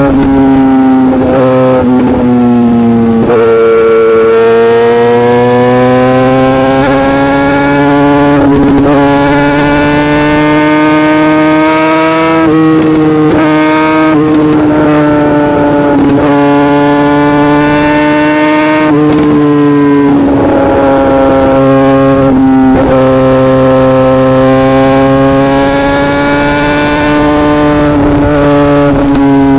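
Yamaha YZF-R6 inline-four exhaust note through an SC Project exhaust, loud and held at high revs. The pitch eases slowly up and down, with brief breaks every few seconds.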